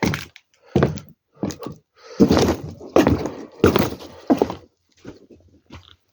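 Footsteps at a steady walking pace: about seven dull thunks, one every 0.7 s or so, fading toward the end.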